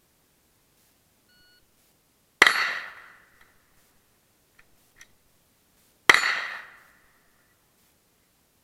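Two sharp, loud impacts about three and a half seconds apart, each with a ringing tail that fades over about a second, and a couple of faint clicks between them.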